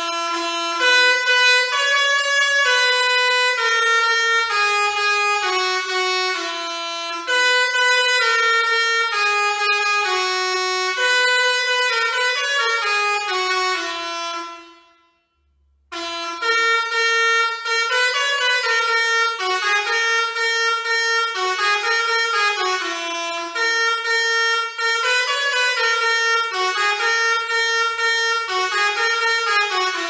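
Basuri 5.0 six-trumpet musical air horn playing one of its built-in melodies as a run of stepped, held notes. The tune plays through, stops for about a second and a half midway, then plays through again.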